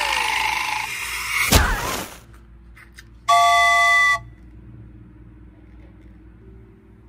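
Edited-in comedy sound effects: a hissing, rushing noise that cuts off sharply about a second and a half in, then a single horn-like toot lasting about a second.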